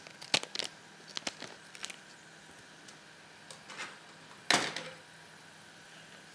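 Scissors snipping through a foil spice packet, a few short crisp snips in the first two seconds, then the packet rustling, loudest about four and a half seconds in.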